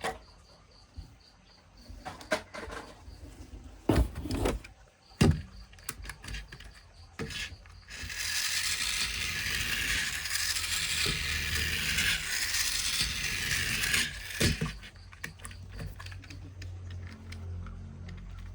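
Plastic toy vehicles being handled, with scattered clicks and knocks, then a steady high-pitched whirring for about six seconds that stops abruptly.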